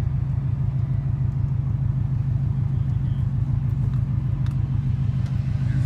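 Engine and aftermarket exhaust of a 2002 Subaru WRX, a turbocharged flat-four, running steadily at low speed or idle. It makes a constant low drone with no revving.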